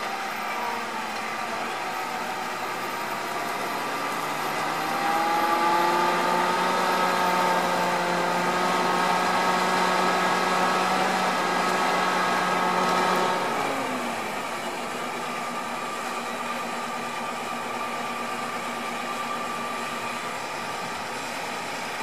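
John Deere 7260R tractor's six-cylinder diesel engine running steadily under load while pulling a seven-furrow Kverneland LO 100 on-land plough through the stubble. The engine note grows louder about five seconds in as the tractor comes close, then drops in pitch and level about thirteen seconds in as it passes.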